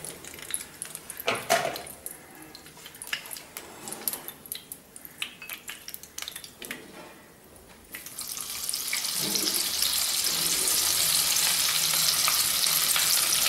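Hot oil in a kadai crackling and popping lightly. About eight seconds in, a batch of marinated banana flower florets goes into the oil and it breaks into a loud, steady sizzle of deep-frying.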